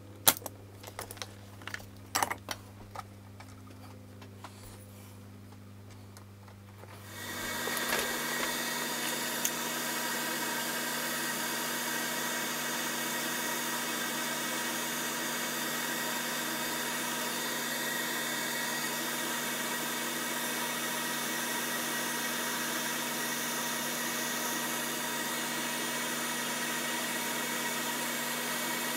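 A few sharp clicks and taps from handling parts and tools at a circuit board. About seven seconds in, a solder fume extractor's fan spins up and runs steadily, a whir with several fixed tones in it.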